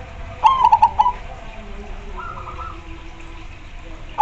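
Zebra doves (perkutut) cooing. One loud call of quick stuttering notes comes about half a second in, and a fainter, higher coo follows a little after two seconds. Another loud call begins right at the end.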